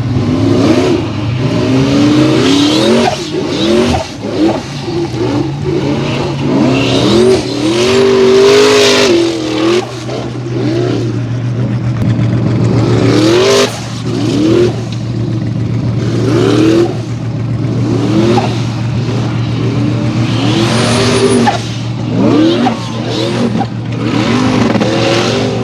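Formula Offroad hill-climb buggy's engine revving hard, its pitch rising and falling again and again as the throttle is worked, with bursts of hiss from spinning tyres throwing dirt. A steady low hum runs underneath.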